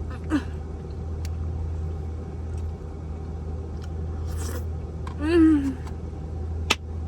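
A person eating, letting out a short hum and then, about five seconds in, a longer, louder 'mmm' of enjoyment that rises and falls. There are a few brief scrapes and a sharp click near the end, over a steady low drone.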